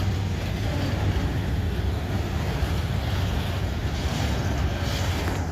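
Freight cars rolling past with a steady low rumble and a vibrating noise, which the onlooker guesses is wheel flanges rubbing on the rail head.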